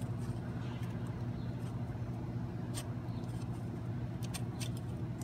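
Light sharp clicks as the variable-geometry turbo's unison ring is turned by hand and its vanes shift: one about halfway through, then a quick cluster near the end. A steady low hum runs beneath.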